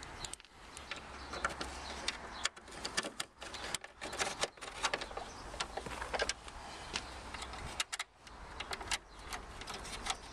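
Irregular clicks, taps and rattles of a hand screwdriver and screws as the top screws of a new L405-style plastic grille are fitted on a Range Rover L322.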